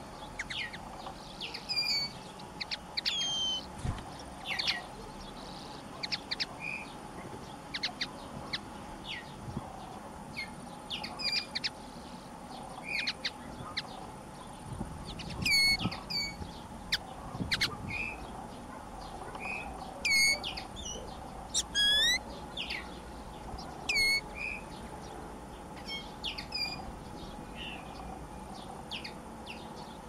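Common linnet singing: a loose twittering run of short chirps and downward-sweeping whistled notes, in phrases broken by short pauses.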